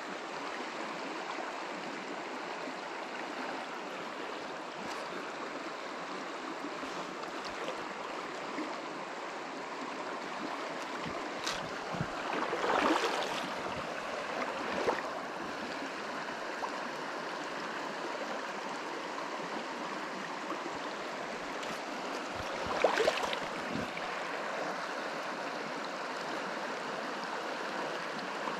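Shallow, stony river flowing past, a steady rush of water. Two brief louder noises stand out, about 13 and 23 seconds in.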